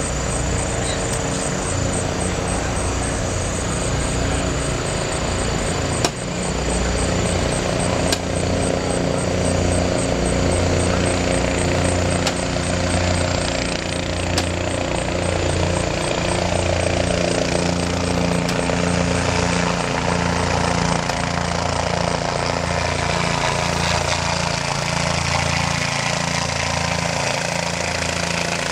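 Bell 206 helicopter approaching and coming down to land, its single turbine and rotor running steadily with a pulsing low throb. There are a few sharp clicks, about six and eight seconds in.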